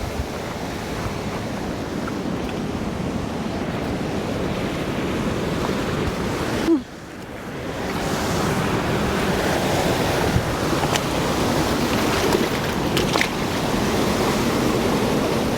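Steady rush of flowing water. It drops sharply for a moment about seven seconds in, then builds back up a little louder.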